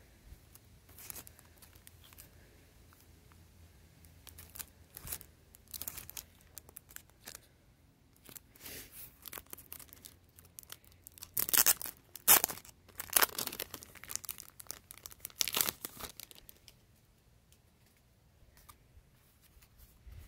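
Clear plastic wrapping on a small boxed item crinkling and tearing in irregular bursts as hands work it off, loudest about halfway through, then fading to faint handling near the end.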